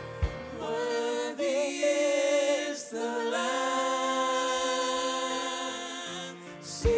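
Worship team of several singers singing a slow chorus in harmony, long held notes with brief breaks for breath, the drum beat dropping out just after the start and the voices nearly unaccompanied. A bass drum hit comes back near the end.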